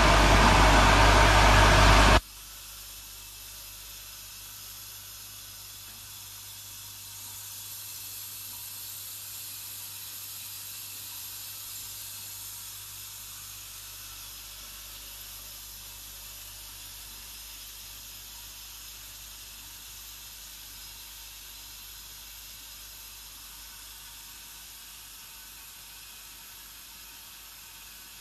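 Automatic clip assembly machine running, a loud steady mechanical hum, which drops suddenly about two seconds in to a faint steady hiss with a low hum underneath.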